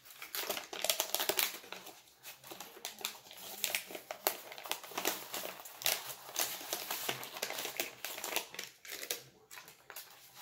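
Plastic and paper wrapping crinkling and rustling in dense, irregular crackles as small model crane parts are pulled from a styrofoam packing tray and unwrapped.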